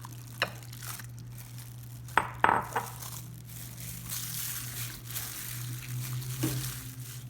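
Sliced liver and spleen being mixed with vinegar in a bowl: soft wet rustling with a few sharp clinks of a utensil against the bowl, most of them a little over two seconds in.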